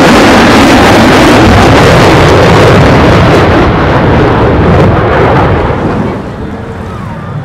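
F-35C's single F135 afterburning turbofan running in afterburner: loud, steady jet noise that drops off about six seconds in as the jet moves away.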